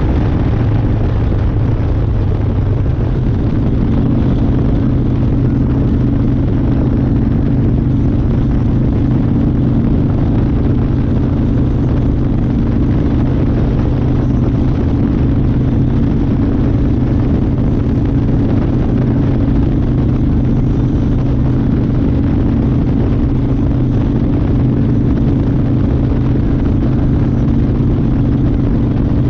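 1992 Harley-Davidson Fat Boy's air-cooled 1340 cc Evolution V-twin running at a steady cruising speed, its pitch holding level.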